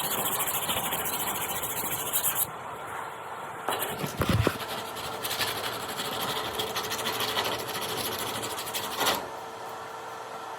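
Sanding of body filler on a car body panel: two spells of steady rasping, the first stopping about two and a half seconds in and the second starting again about a second later, with a dull thump just after it restarts. The second spell stops about a second before the end.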